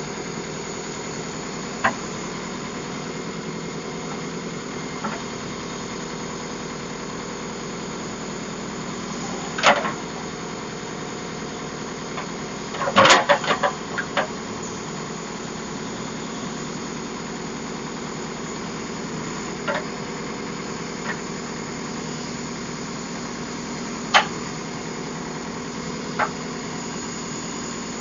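Heavy diesel engine running steadily, with sharp clanks and knocks now and then, a quick cluster of them about halfway through.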